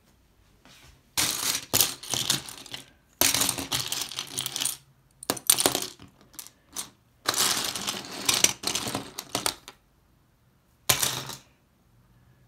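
Loose plastic LEGO bricks clattering and rattling as a hand rummages and sifts through a pile of them, in about five bursts with short pauses between.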